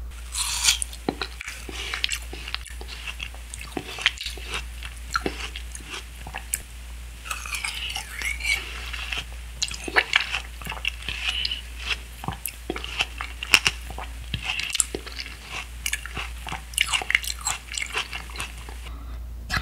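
A person biting into and chewing a mouthful of grilled watermelon steak close to the microphone: a dense, irregular run of small crisp clicks and crunches.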